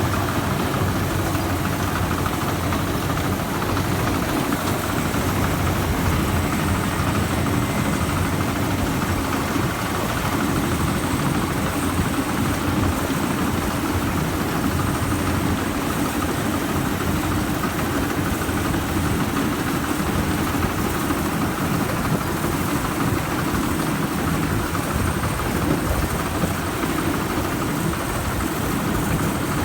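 Rice combine harvester running steadily at work, its diesel engine and machinery giving a constant heavy hum.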